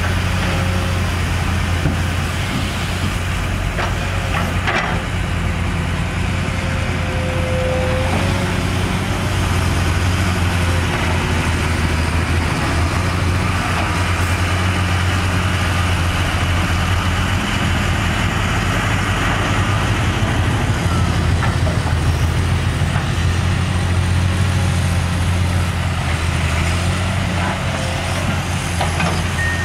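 Heavy diesel engines of a dump truck and a Komatsu PC210 excavator running steadily while the truck's bed tips up to unload its load, a deep even drone with no breaks.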